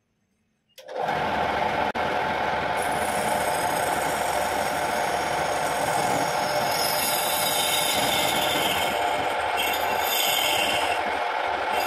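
Homemade wood lathe running, with a hand-held turning tool scraping the end face of a spinning wooden blank: a steady hum with a rasping cut over it. The sound starts abruptly just under a second in, after near silence.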